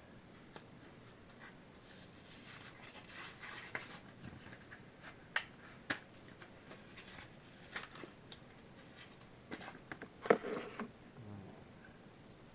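Trading cards and small plastic card stands being handled and set up: scattered light clicks and taps with some rustling, the loudest taps coming about ten seconds in.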